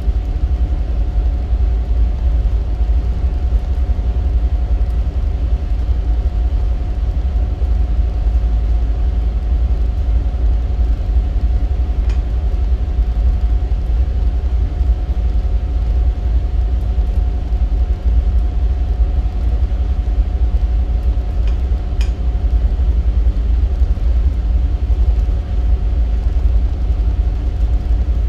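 Towboat diesel engines running steadily under way, pushing a barge tow: a continuous low drone with a few steady hum tones over it.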